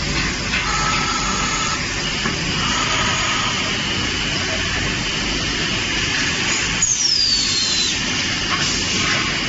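Machinery of a gas cylinder production line running steadily, with an automatic roll stamping machine handling steel cylinders. A brief high squeal falls in pitch about seven seconds in.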